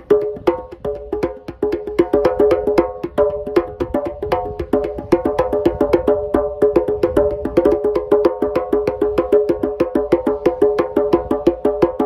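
Two djembes played with bare hands in a fast, steady rhythm, several strikes a second, the drumheads ringing between strikes.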